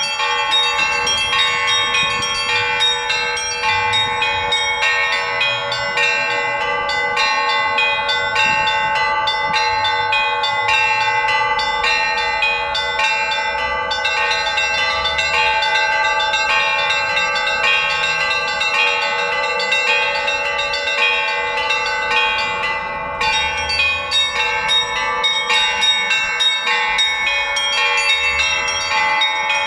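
Russian Orthodox church bells rung in a trezvon: quick, steady strokes on the small high bells over the lingering ring of the larger bells, with a short break in the small bells about two-thirds of the way through.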